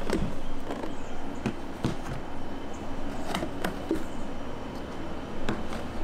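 Clear plastic food-container lid handled at a stainless steel sink: a scattering of sharp plastic clicks and taps as it is pulled off and set down, over a steady low hum.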